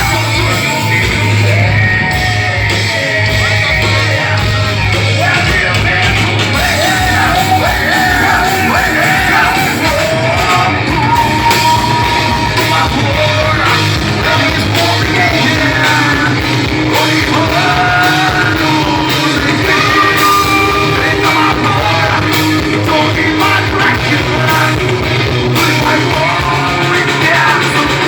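A rock band playing live, with a yelled, shouted lead vocal over the band. It is loud and steady throughout.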